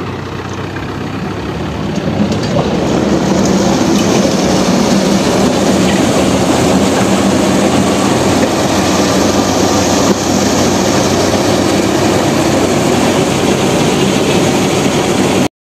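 Tractor-driven thresher starting up, its noise building over the first couple of seconds and then running steadily, with the tractor engine under it. It is cleaning mung beans, and the beans are being broken in the process.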